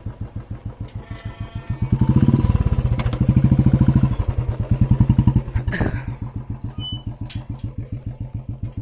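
Royal Enfield Bullet's single-cylinder engine idling with an even, rapid thump of about five or six beats a second, louder for a few seconds from about two seconds in. A couple of sharp metallic clanks from the iron farm gate sound over it.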